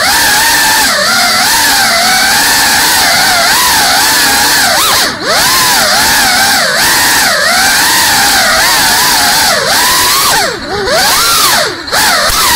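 FPV quadcopter's brushless motors and propellers whining, the pitch rising and falling constantly with the throttle, over a steady rush of prop wash. Brief throttle dips come about five seconds in and again near the end.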